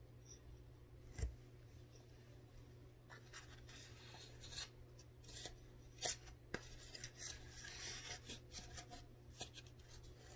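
Frozen corn starch being chewed and scraped with a metal spoon from a plastic tub: faint scratchy crunching that picks up about three seconds in, with a sharp click about a second in and a louder one about six seconds in.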